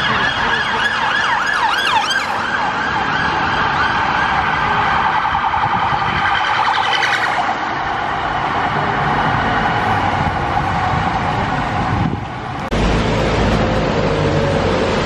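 Emergency vehicle siren in city traffic, switching between a fast yelp and a steadier tone whose pitch slides slowly lower. About twelve seconds in it stops abruptly, leaving low rumbling traffic noise.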